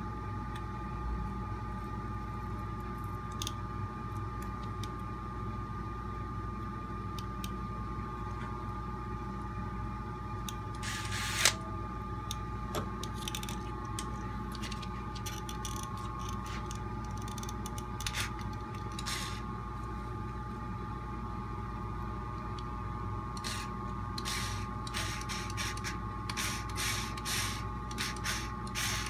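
Workbench handling noise: scattered clicks and rustles of hand tools and small RC-car parts being worked, with one sharper click about a third of the way in and a flurry of short clicks near the end, over a steady background hum.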